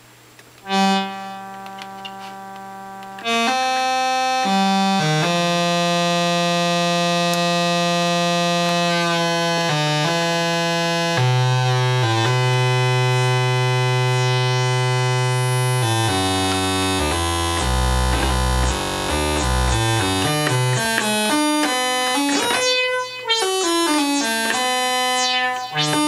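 Doepfer Dark Energy monophonic analog synthesizer playing one note at a time: a soft single note about a second in, then louder held notes from about three seconds in. From about sixteen seconds a quicker run of short notes dips into deep bass, and a few notes slide downward near the end.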